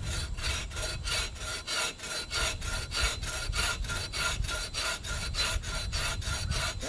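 Collapsible H-type buck saw cutting through a log, worked back and forth by two people, its teeth rasping in a fast, even rhythm of strokes.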